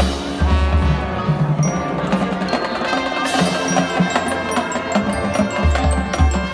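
High school marching band playing, with brass and woodwinds over drums and mallet percussion such as glockenspiel and marimba, and a cymbal crash about three seconds in.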